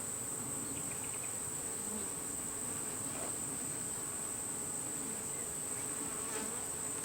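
Honey bees buzzing around an opened hive: a steady, even hum of many bees, with a constant high-pitched tone above it.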